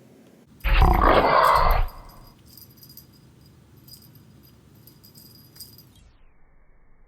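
A domestic cat giving one loud call of a little over a second, starting about half a second in, followed by faint room noise.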